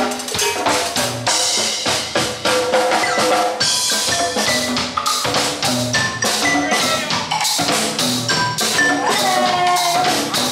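Music with a steady drum-kit beat and a pitched melody over it.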